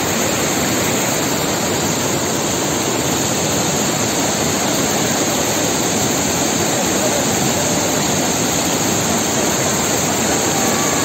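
Fast-flowing mountain stream rushing steadily, an even wash of water noise with no pauses.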